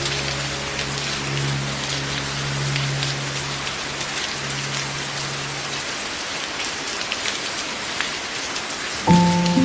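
Steady rain, an even hiss dotted with many separate drop hits. Soft sustained music chords fade out about halfway through, and a new chord comes in near the end.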